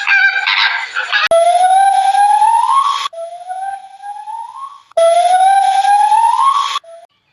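A long animal call rising in pitch, heard three times: loud, then fainter, then loud again.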